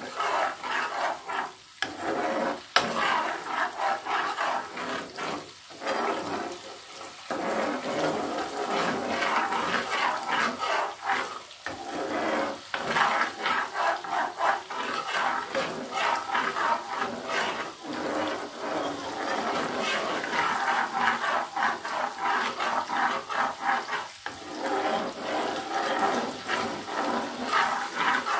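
Homemade butter bubbling and sizzling in a non-stick pan as it boils down into ghee: a dense, steady crackle of popping bubbles as the water cooks out, with a spoon stirring now and then and a sharp knock about three seconds in.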